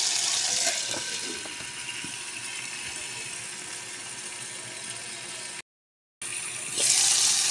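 Native frogs frying in hot cooking oil in an electric pot, a steady sizzle. It turns duller and quieter once the glass lid is on, breaks off for a moment, and comes back louder near the end.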